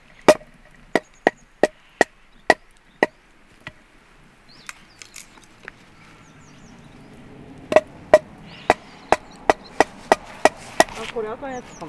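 A hatchet chopping softwood kindling against a stone: sharp chops with a short ringing note, about two to three a second. A few seconds of light taps come in the middle, then another quick run of chops near the end.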